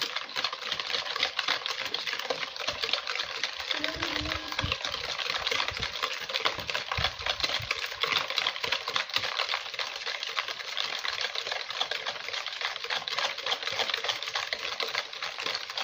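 Cake batter of eggs, sugar and oil being beaten fast by hand in a plastic bowl, beaten until fluffy: rapid, steady clicking of the utensil against the bowl with liquid splashing.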